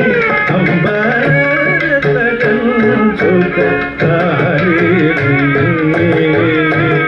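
Live Carnatic music: a male voice singing with sliding, ornamented pitch, a violin following the melody, and mridangam and ghatam strokes keeping a quick rhythm over a steady drone.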